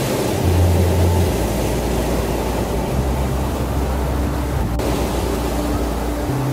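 Ocean surf washing onto a sandy beach, a steady rushing noise, over low droning tones that shift pitch a few times.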